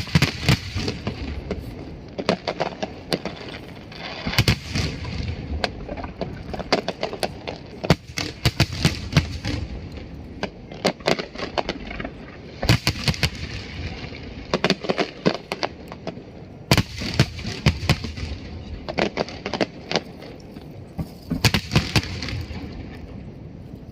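Aerial fireworks going off in a display: rapid clusters of sharp bangs and crackles every few seconds, over a steady low rumble.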